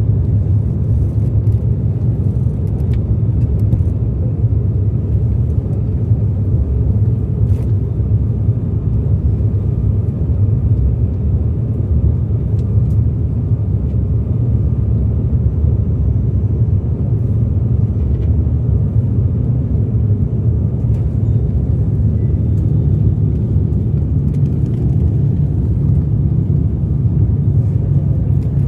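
Steady low rumble of an airliner's engines heard inside the passenger cabin during the approach for landing.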